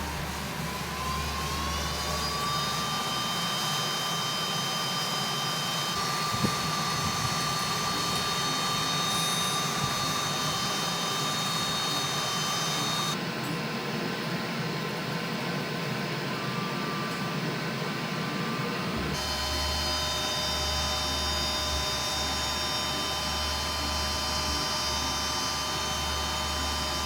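Small electric power-tool motor spinning up with a rising whine, then running steadily. Its pitch and hum shift abruptly about halfway through and again about two-thirds of the way through.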